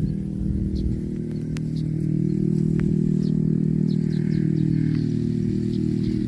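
A small engine running steadily at a constant speed, with a few faint high clicks over it.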